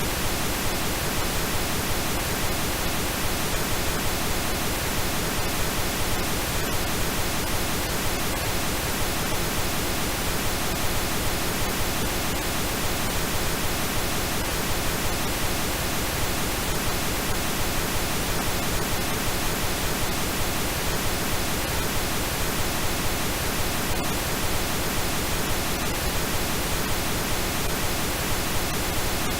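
Steady, unbroken synthetic pink noise with faint steady tones mixed in.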